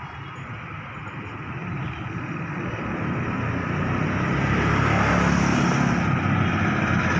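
Steady rumbling noise that grows louder over about five seconds, then holds.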